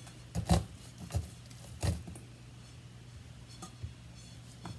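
A large chef's knife slicing kernels off a cob of sweet corn into a stainless steel bowl: a few short crunching cuts and taps, the strongest about half a second in, with fainter ones near the end.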